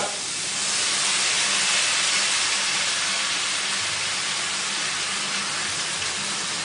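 Hot frying pan of onion, pancetta and spinach hissing with steam as pasta cooking water is poured in to bring the temperature down; the hiss swells about half a second in and then holds steady.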